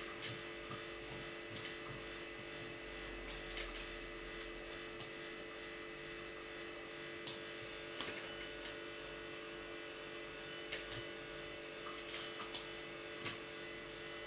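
Steady electrical hum from the computer, with about five sharp mouse clicks, the last two close together near the end.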